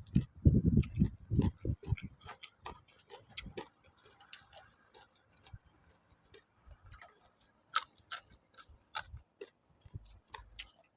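A person eating noodle soup close to the microphone: a dense, irregular string of small wet clicks from chewing and lip smacking, with louder low slurping pulses in the first two seconds.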